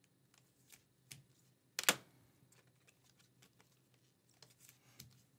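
Trading card and clear plastic card holder being handled: faint plastic rustles and light clicks, with one louder tap about two seconds in.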